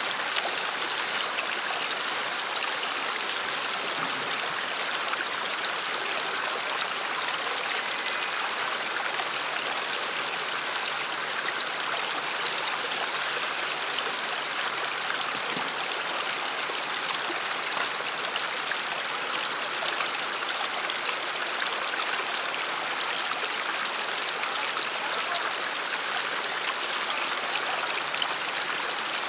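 Creek water running in a steady rush, with no pauses or changes.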